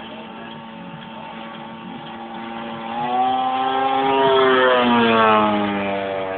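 Engine of a 28% scale Extra radio-controlled aerobatic model plane, turning a homemade propeller, flying past. Its steady drone swells from about three seconds in, and its pitch drops as the plane passes, then fades a little.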